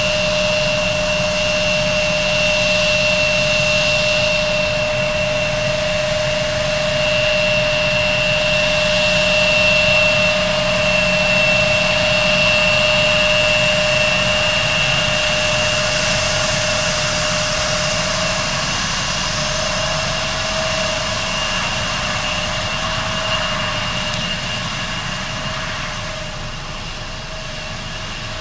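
Bombardier CRJ regional jet's two rear-mounted turbofan engines running at low taxi power as the aircraft rolls and turns on the runway: a steady whine with two held tones, one high and one mid-pitched, over a rushing hiss. It grows a little quieter near the end as the engines turn away.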